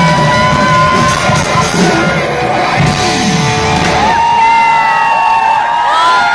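Live concert music over a stage sound system, a steady beat under a singing voice, with the crowd whooping and shouting. The beat drops out about four seconds in, leaving long held sung notes.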